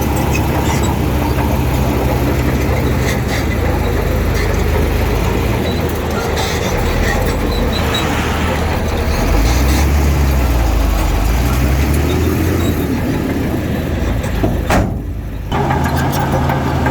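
Heavy diesel engine of earthmoving machinery running under load. Its pitch rises and falls around the middle, and the sound breaks off briefly about fifteen seconds in.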